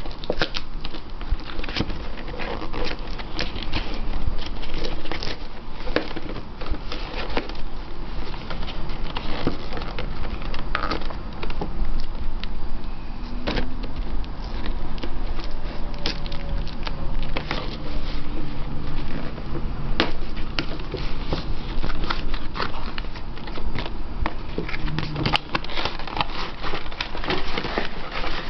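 Cardboard toy box and its plastic packaging being handled and pulled open: a dense, irregular run of crackles and sharp clicks.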